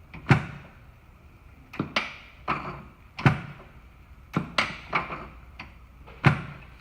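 Handheld Activator chiropractic adjusting instrument firing repeatedly against the side of the ribs. It makes about ten sharp clacks at uneven spacing, a few in quick pairs, and each has a brief low ring.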